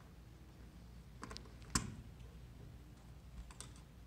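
Screwdriver working a terminal screw on a Luxpro thermostat's wall plate: a few faint clicks and taps of metal on the screw and plastic terminal block, the sharpest about two seconds in.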